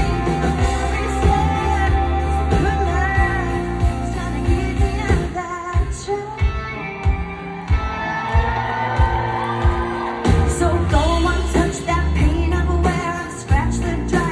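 Live country-pop song played loud over a concert PA: female lead vocal over a full band of electric and acoustic guitars, keyboards and drums, heard from the audience. The bass and drums drop back for a couple of seconds about midway, then come back in.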